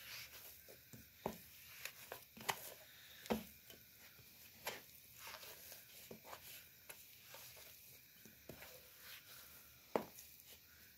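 Quiet, irregular soft thumps and pats of hands kneading pizza dough on a floured tray as it is pressed and folded, with a sharper knock about ten seconds in.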